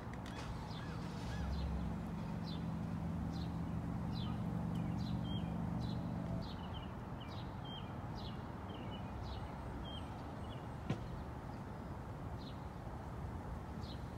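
A small bird chirping over and over in short falling notes, with a low steady engine hum underneath that stops about halfway through. One sharp click near the end.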